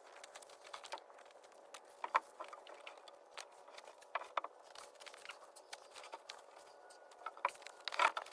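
Irregular light clicks and taps, with a few louder knocks about two seconds in and near the end.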